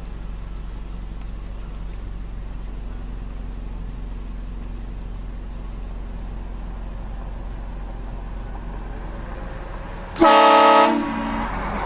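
Vehicle-mounted air train horn sounding one loud blast of several tones at once, about ten seconds in, lasting about a second before tailing off. Before it, only a low steady hum.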